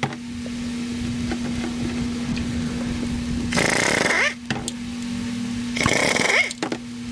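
Two short bursts of a handheld power tool, about two seconds apart, over a steady hum.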